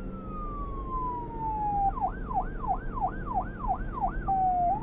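Electronic siren: a slow wail falling in pitch switches about two seconds in to a fast yelp of three to four sweeps a second, then holds one tone briefly and rises back into the yelp near the end.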